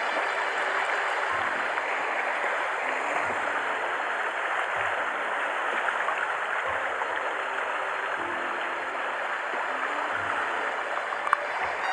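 Water of a shallow, stony river riffle rushing steadily.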